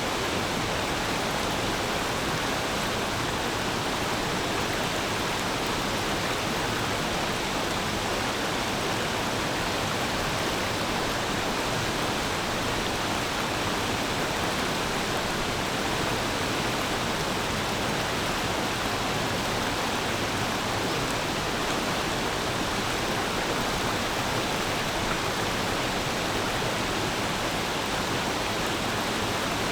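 A shallow forest stream flowing steadily, its water making an even, unbroken rushing babble.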